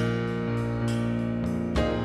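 Jazz ensemble playing, with held chords and new notes struck about once a second.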